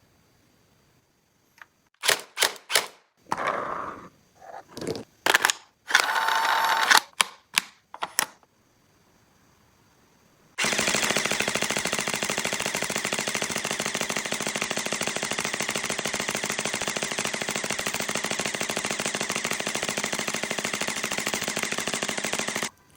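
Toy gun sounds. First comes a string of separate sharp clicks and short mechanical snaps over several seconds. Then, after a pause, a very fast, even rattle like automatic fire runs for about twelve seconds and stops abruptly.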